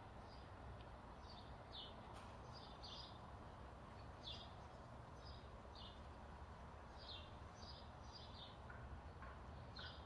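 Small songbirds chirping faintly: short high chirps, one every second or so, over a steady low outdoor rumble.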